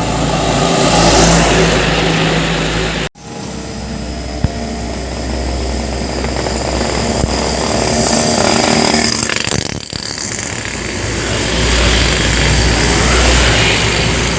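Heavy diesel trucks running and passing on a road, with steady engine drone and tyre and road noise. The sound cuts out abruptly for an instant about three seconds in, with a smaller break near ten seconds.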